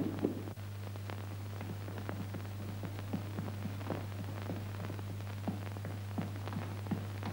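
Soft footsteps going down a staircase, about two steps a second, over a steady low hum in the old film soundtrack.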